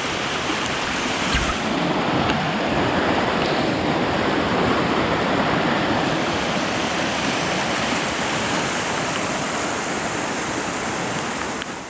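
Flooded creek, swollen by heavy rain, rushing past in a steady wash of water noise.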